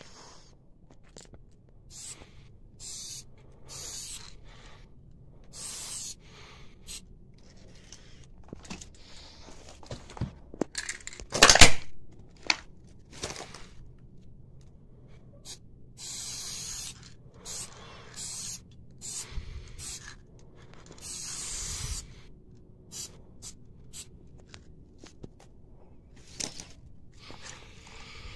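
Aerosol spray paint can hissing in repeated short bursts as paint is sprayed onto a wall, with small clicks between bursts. One loud sharp knock comes about halfway through.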